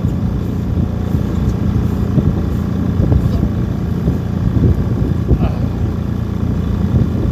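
Fishing boat's engine running steadily, a low even drone.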